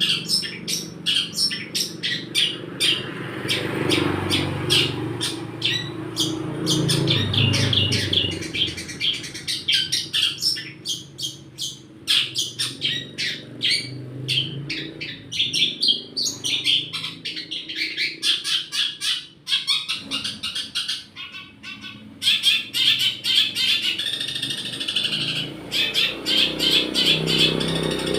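Long-tailed shrike singing fast runs of short chattering chirps, mimicking Eurasian tree sparrow calls, with a few brief pauses.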